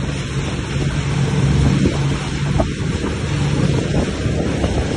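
Motorboat running at speed: a steady engine drone under heavy wind buffeting on the microphone and the rush of water from the wake.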